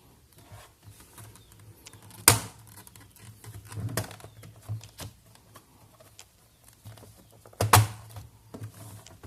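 Plastic clips of an HP 14-an031au laptop's bottom case snapping loose as the case is pried open: two sharp snaps, about two seconds in and near the end, with lighter clicks and scraping of plastic between them.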